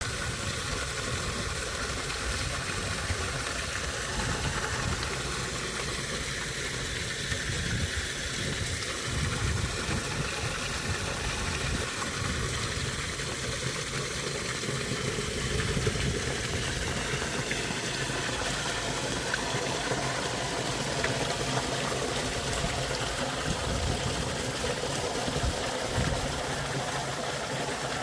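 Stream water rushing and gurgling under river ice at an opening in the ice, a steady flow with an uneven low rumble beneath it.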